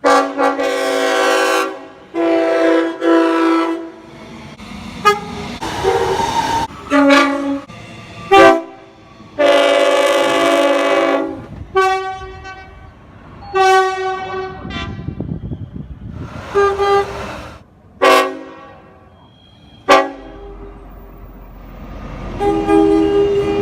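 Train horns: a quick succession of loud chord blasts from different trains, each with its own pitch and each cut off abruptly, the longest about two and a half seconds near the middle. Toward the end a low rumble of a passing train runs under another horn blast.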